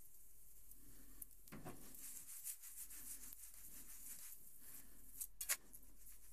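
Pancake in a hot non-stick frying pan, faintly sizzling. The pan is shuffled and lifted with a rubbing scrape about one and a half seconds in. The pancake is then tossed and lands back in the pan with a sharp slap near the end.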